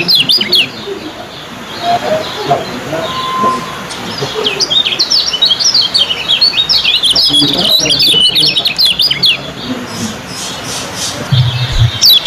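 Caged kecial kuning (white-eyes) singing their fast 'ciak' chatter: quick runs of short, high twittering notes, thickest from about four to nine seconds in. A couple of low thumps come near the end.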